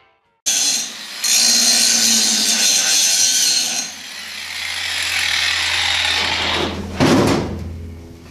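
Electric angle grinder running against metal. It is harsh and high-pitched for the first few seconds, with a loud short grind about seven seconds in, then it falls away near the end.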